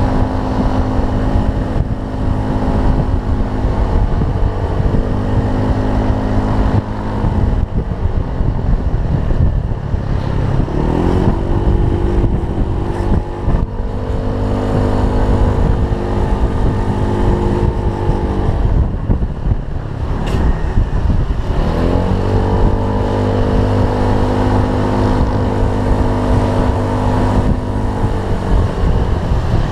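Honda Zoomer-X scooter's small single-cylinder four-stroke engine running steadily under way. Its pitch drops and then glides back up twice, about a quarter and about two-thirds of the way through, as the throttle is eased and opened again.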